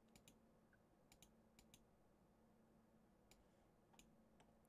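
Near silence with a few faint, scattered computer mouse clicks.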